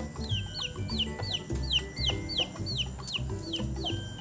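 Hens clucking over background music with a steady beat, and a high, falling chirp repeated about three times a second.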